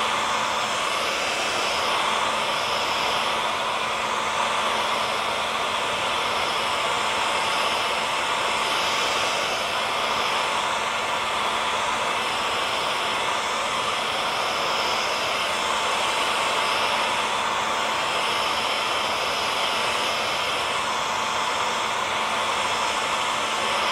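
Hair dryer running continuously: an even blowing rush with a steady motor hum and whine held at one pitch throughout.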